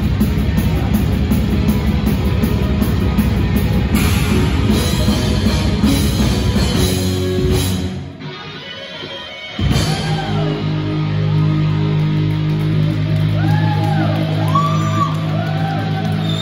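Heavy metal band playing live on drums, bass guitar, electric guitar and keytar. The full band drops out about eight seconds in, then comes back with a long held final chord, with high sliding notes over it.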